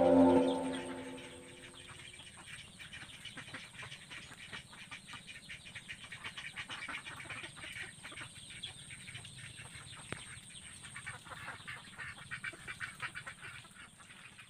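Domestic mallard-type ducks dabbling in a muddy puddle, their bills working through the wet mud and water in a rapid, irregular run of small clicks and slurps. Background music fades out in the first second or two.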